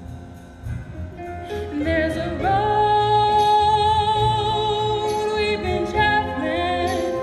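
A live gospel-style show tune sung on stage, heard from the audience: a singer comes in about two seconds in and holds one long note with vibrato over the accompaniment, then moves on to a new phrase near the end.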